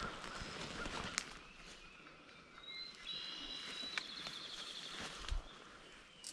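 Footsteps swishing through grass and brush, with a few light ticks and a low thump near the end. A small songbird sings a high whistled phrase ending in a fast trill from about three seconds in.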